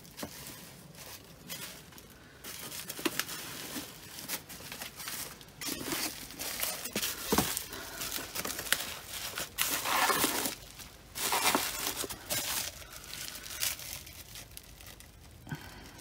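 Bubble wrap and plastic wrapping crinkling and rustling in irregular bursts as hands rummage through a plastic crate of wrapped mugs, with a sharp knock about halfway through.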